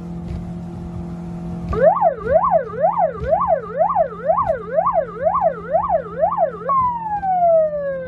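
Electronic police-style siren wailing in a fast up-and-down yelp, about two sweeps a second, starting about two seconds in, then winding down in one long falling tone near the end. A steady low hum runs underneath.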